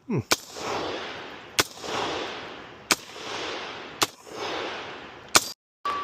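A firearm fired five times at a steady pace, about one shot every 1.3 seconds. Each sharp report is followed by a long echo that swells and then fades. The sound drops out briefly near the end.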